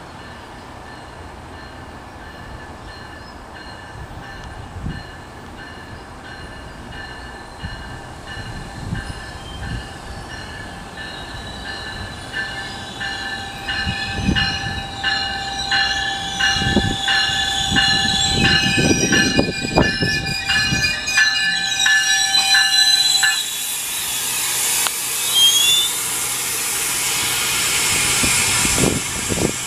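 GO Transit bilevel commuter train, cab car leading, pulling in to the platform. Its rumble and wheel noise grow louder as it nears, with a steady high-pitched squeal from about twelve seconds in to about twenty-three seconds as it brakes. A hiss and a few short sliding squeals follow as it comes to a stop.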